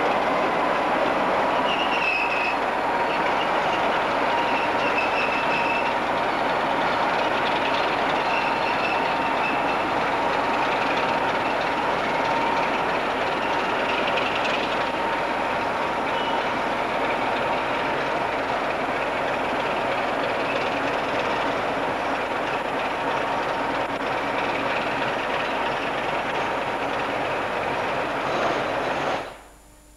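Pair of BRCW Class 26 diesel-electric locomotives, Sulzer six-cylinder engines, running as the train moves slowly along the curved platform track. There is a thin high wheel squeal a couple of seconds in. The sound cuts off suddenly near the end.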